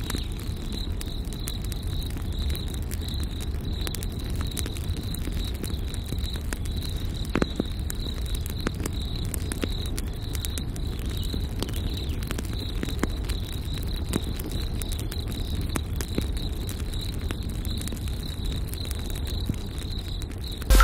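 Wood campfire burning with a steady low rush of flames and scattered crackles and pops, while crickets chirp steadily.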